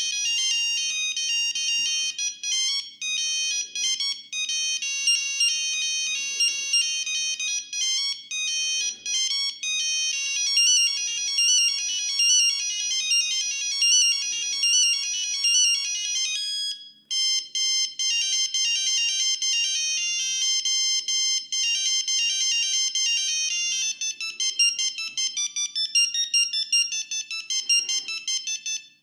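Siemens S35 mobile phone playing its built-in monophonic ringtones through its small loudspeaker: a fast electronic melody of high beeping notes that breaks off about 17 seconds in, after which a second tune starts.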